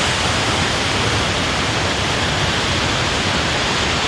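Steady rush of water from a waterfall on a small stream.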